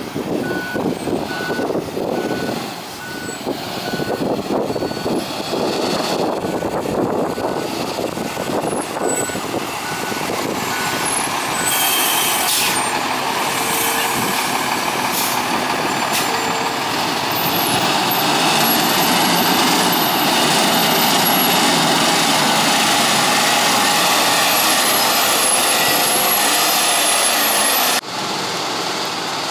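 Sterling Acterra garbage truck's diesel engine running, with a reverse backup alarm beeping steadily at one pitch for the first dozen seconds. The engine then grows louder and steadier as the truck comes up close.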